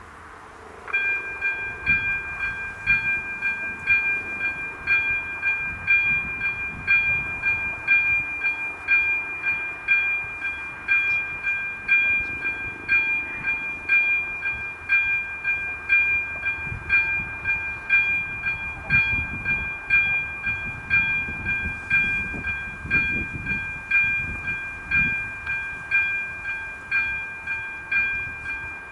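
Level crossing's electronic warning bell on AŽD 97 crossing signals starts about a second in and keeps ringing, a steady two-pitch ring that pulses about once a second: the crossing is warning of an approaching train.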